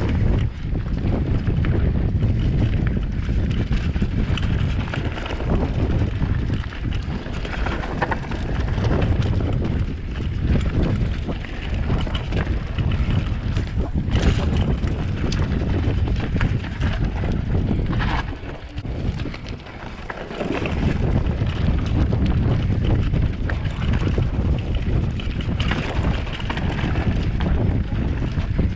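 Wind rushing over the microphone of a camera on a mountain bike descending a dirt trail, with the tyres rolling over dirt and gravel and the bike rattling. The noise eases briefly about two-thirds of the way through.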